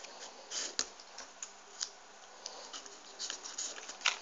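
Folded paper triangle units of a 3D origami model rustling and scraping as they are pushed into place, in a few short, scattered rustles.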